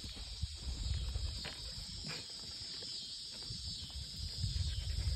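A steady high hiss of insects chirping, with footsteps on gravel and dirt and an irregular low rumble on the microphone from the walking camera.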